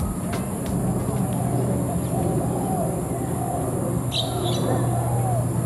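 Many birds calling and chirping together over a steady low hum, with sharp high chirps about four seconds in.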